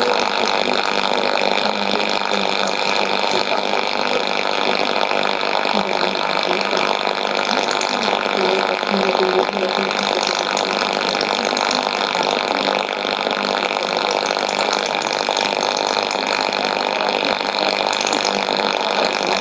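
Steady shortwave static and hiss from a Sony ICF-2001D receiver tuned to a weak broadcast on 9985 kHz, with no clear programme audio above the noise.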